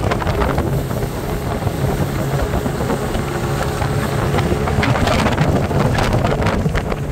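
Boat taxi's motor running steadily under way, with rushing wind on the microphone that turns gustier in the second half.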